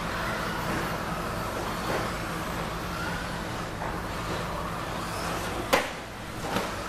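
1/10-scale electric stadium trucks with 13.5-turn brushless motors racing on a dirt track: whining motors and gears rising and falling in pitch as they pass, over a steady low hum. A sharp knock just before the sixth second is the loudest sound, with a smaller one near the end.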